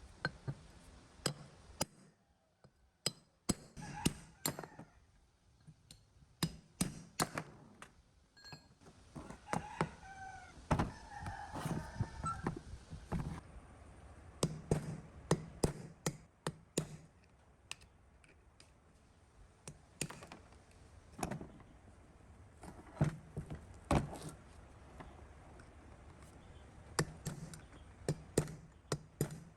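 Irregular metallic knocks, taps and clinks of hand tools and engine parts being worked and set down, with a short squeaky warble about ten seconds in.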